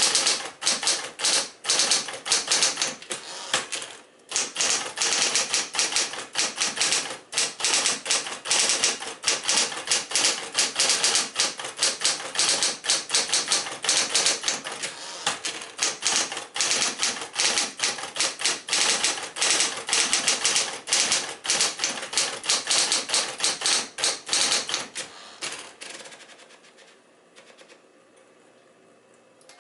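Smith-Corona Electra 120 electric typewriter typing steadily, its keys and typebars striking in a rapid stream of clicks, with a short pause about four seconds in. The typing stops a few seconds before the end.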